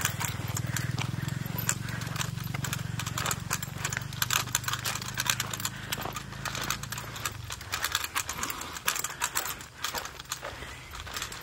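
Motorcycle engine running steadily, fading away about seven seconds in, with irregular sharp clicks and taps throughout.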